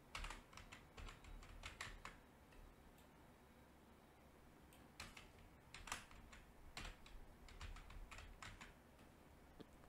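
Faint typing on a computer keyboard, in two bursts of key clicks about three seconds apart.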